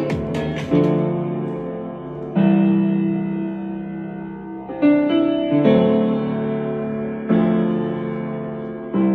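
Music playing through a portable Bluetooth speaker: sustained piano-like keyboard chords, a new chord struck every one to two and a half seconds and fading away before the next, with little treble.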